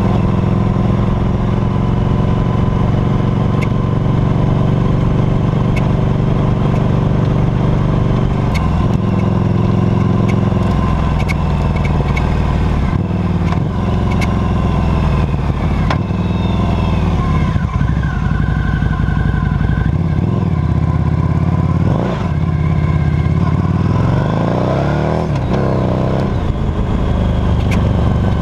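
2008 Harley-Davidson Night Rod Special's liquid-cooled Revolution V-twin running under way, heard close from the rear footpeg. The note is steady at first, then the revs fall and rise several times in the second half.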